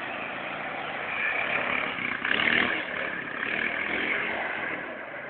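Honda Foreman 500 quad bike's single-cylinder engine running under throttle as it spins donuts through shallow water, swelling to its loudest about two and a half seconds in.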